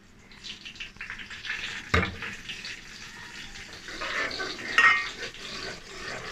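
A metal spoon stirring and scraping around an aluminium pot, with a sharp knock against the pot about two seconds in and another near five seconds, while a yogurt, onion and tomato masala paste fries in hot oil with a sizzle.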